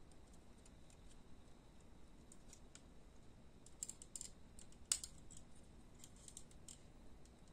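Faint clicks and taps of stiff plastic snap-kit parts from a Tamiya 1/20 model, handled and pressed together by hand. There are a few scattered ticks, a small cluster about four seconds in, and the sharpest click just before five seconds.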